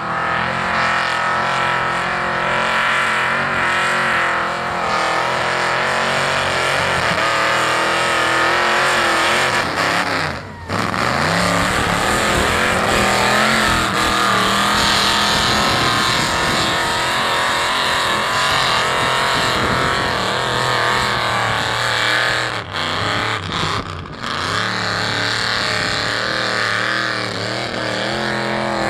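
Open-exhaust engine of a Ford mud truck running hard at high revs through a mud pit, with a few sudden breaks where the sound drops out briefly and picks back up.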